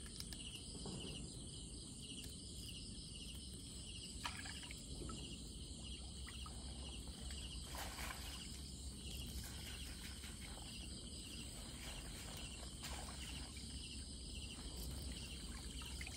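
Crickets chirping steadily in fast pulses, with a few splashes and drips of water as a mesh fish trap is lifted out of the water.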